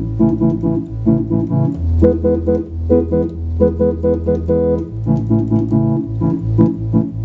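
Allen Digital Theatre Compact electronic theatre organ playing on its tibia stops, with repeated short chords over held bass notes.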